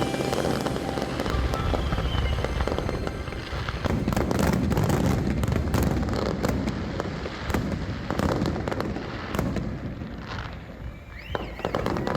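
Aerial fireworks bursting in a rapid, continuous string of bangs and crackles over a deep rumble, with a few short whistling tones near the end.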